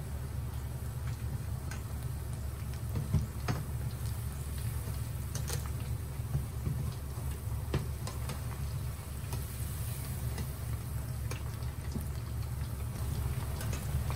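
Potato chips deep-frying in hot oil in a pot, with scattered crackles and pops over a steady low hum.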